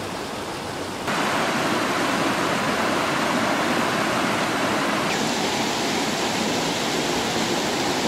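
Shallow mountain river rushing over rocks and stones, a steady rush that steps up louder about a second in.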